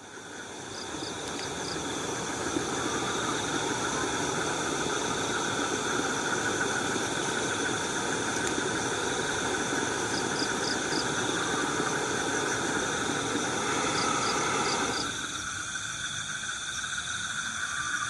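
Steady chorus of crickets and other insects, over a steady low rumble that cuts off about fifteen seconds in. A quick high four-note chirp comes three times.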